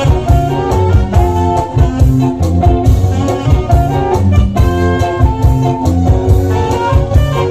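Live band playing amplified dance music through a PA sound system, with a steady beat and a strong bass.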